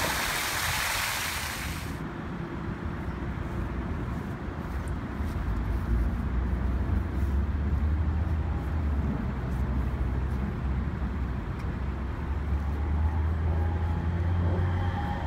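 Splash-pad fountain jets spraying as a steady hiss, which cuts off abruptly about two seconds in. A low, steady outdoor rumble follows.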